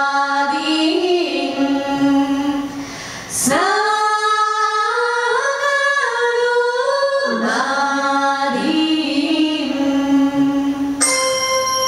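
Women's voices singing live in long, held, sliding notes with little or no accompaniment, pausing briefly about three seconds in. Near the end, bright bell-like chiming comes in.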